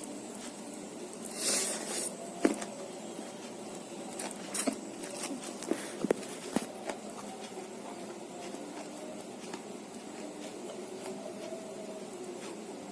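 A person eating: soft chewing and mouth smacks, with scattered small clicks between about two and seven seconds in, and one brief hiss about a second and a half in.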